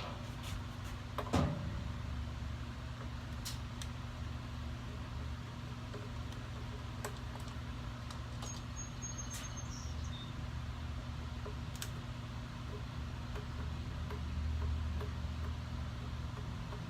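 Steady low hum with scattered light clicks and taps of small parts being handled, as a motorcycle turn-signal lens and its screws are taken off; a louder short falling scrape about a second in.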